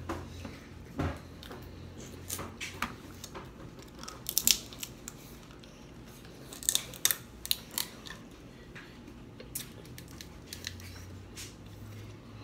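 Snow crab shells being snapped and picked apart by hand, with close-up eating and mouth sounds: irregular sharp clicks and cracks, the loudest clusters about four and a half seconds in and again around seven seconds.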